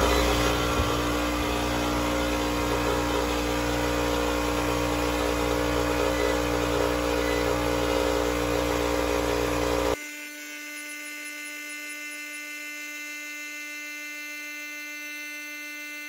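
A Craftsman 30-gallon, 6 HP electric air compressor starts at once and runs steadily, pumping up its tank. About ten seconds in the sound drops suddenly to a quieter, thinner steady hum with no low end.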